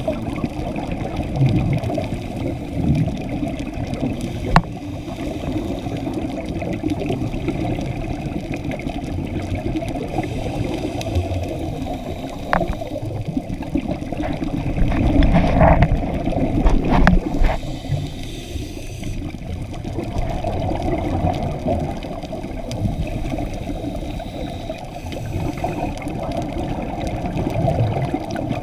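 Muffled underwater rumble of scuba divers' regulator breathing and exhaled bubbles, heard through a camera's waterproof housing, swelling and fading every few seconds. A few sharp clicks stand out, the loudest passage about halfway through.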